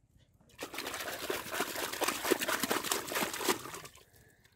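Wet splashing and slapping in shallow water as hands work among live fish in a plastic basin. It starts about half a second in, lasts about three seconds and dies away.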